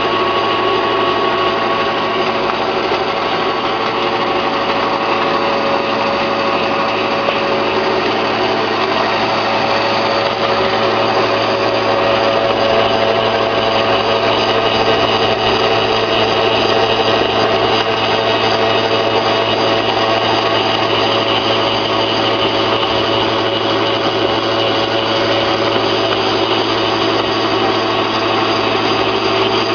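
Small flat-die pellet mill driven by an electric motor, running steadily under load as it presses wood chips into pellets. It makes a loud, constant mechanical hum with several held tones over a rough grinding noise.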